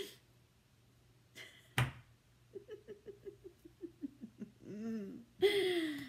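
A woman giggling softly in a quick run of short, falling laughs, with one sharp knock about two seconds in.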